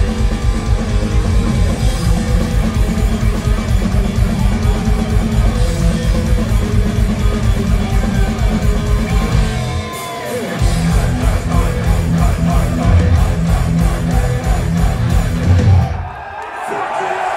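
Live heavy metal played loud through a venue PA and recorded from the crowd: distorted electric guitars over a drum kit. The low end drops out briefly about ten seconds in, then the band comes back in. The music stops abruptly near the end, and the crowd cheers.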